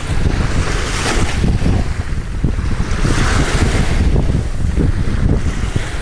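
Small waves washing up over sand and shells at the water's edge, the foam hissing as each one spreads, swelling about a second in and again around three seconds. Heavy wind buffeting on the microphone makes a loud low rumble throughout.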